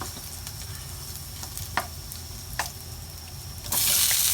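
Garlic and other ingredients frying in oil in a pan, with a steady sizzle and two sharp taps of a utensil against the pan. Near the end the sizzle suddenly becomes much louder.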